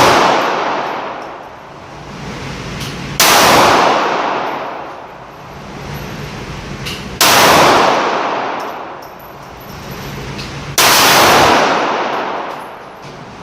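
Glock 9mm pistol firing three single shots about four seconds apart, each followed by a long echoing decay.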